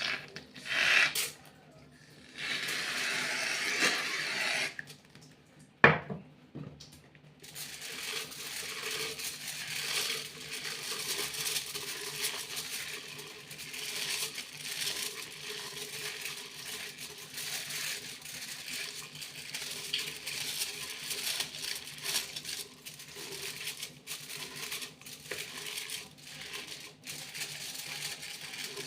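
Foil being handled and crinkled close up: a few short rustling bursts at first, a sharp knock about six seconds in, then continuous rapid crackling and crinkling.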